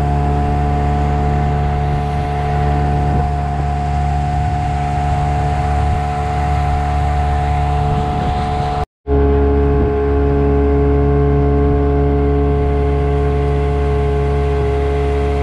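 A small boat's outboard motor running steadily at cruising speed, with water rushing along the hull. The sound cuts out for a split second a little under nine seconds in and comes back at a slightly different pitch.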